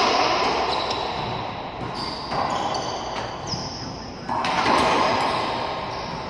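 Racquetball rally: the hard rubber ball is struck and smacks the court walls with a loud bang about four seconds in, ringing and echoing around the enclosed court. An earlier hit is still echoing away at the start. Sneakers give short high squeaks on the hardwood floor in between.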